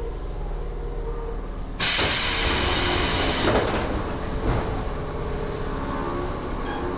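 A low steady hum inside a Tobu 10000 series commuter car. About two seconds in, a sudden loud hiss of compressed air from the car's pneumatic system lasts about a second and a half, then dies away.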